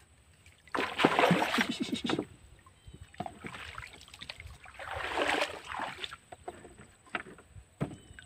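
Fugu Tora PRO 2000 spinning reel being cranked in two bursts, about a second in and again around five seconds, as line is wound in on a topwater lure, with a few light clicks in between.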